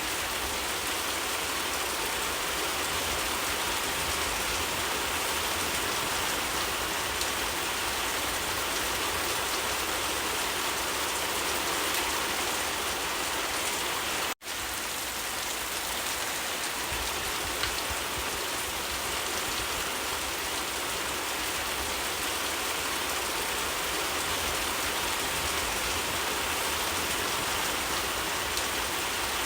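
Steady, dense rain falling and pattering on surfaces. It cuts out for an instant about halfway through.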